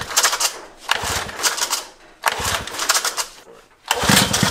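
An old outboard motor, long stored in a shed, being cranked over in about four short bursts of roughly a second each, a fast run of knocks in each, without starting.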